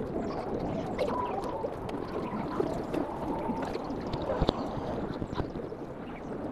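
Steady wind and handling noise on a handheld camera's microphone while walking on a path, with a few sharp knocks, the loudest a little past halfway.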